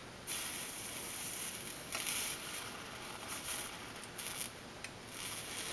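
Flux sizzling under a soldering iron as solder melts onto a joint: a high hiss that starts about a third of a second in and swells and fades in uneven spurts.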